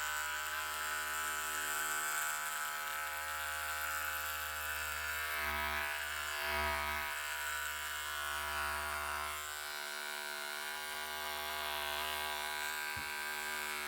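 Electric hair clipper running with a steady buzz. Its tone shifts briefly about six seconds in and drops slightly near ten seconds.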